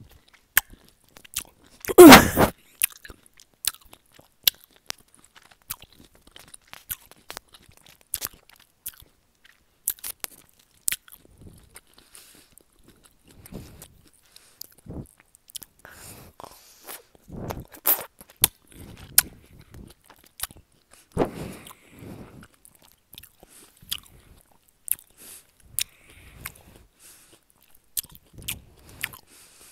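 Close-up ASMR chewing and crunching of a crunchy snack, picked up by a wired earphone microphone held right at the mouth: irregular sharp crunchy clicks and mouth noises, the loudest a brief burst about two seconds in.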